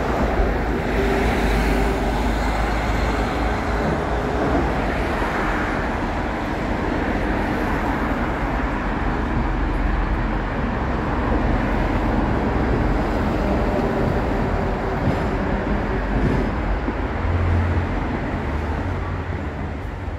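Steady road traffic noise, a continuous rumble of passing vehicles.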